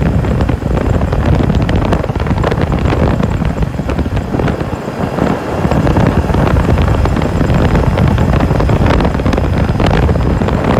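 Wind buffeting the microphone, a loud, continuous rumble that surges and dips irregularly.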